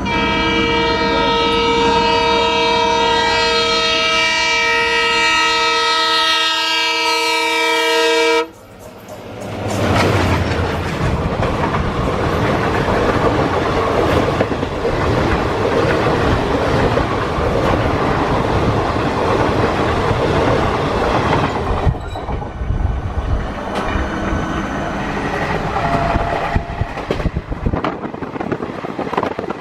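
Diesel locomotive horn sounding one long, steady, multi-tone blast for about eight seconds. It breaks off suddenly and gives way to the loud rush of a train passing close by on the next track, its wheels clattering rapidly over the rail joints, heard from another moving train.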